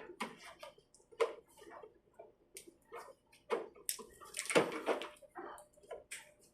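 Screwdriver turning a screw into the plastic body of a Bissell PowerForce vacuum, with irregular clicks and scrapes of the screw and the parts being handled, and a louder scrape about four and a half seconds in.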